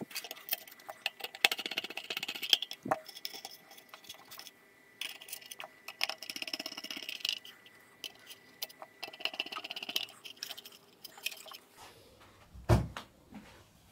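Hands handling a wifi router's metal-and-plastic case: scattered clicks and rattles in three spells, then a single heavier thump near the end.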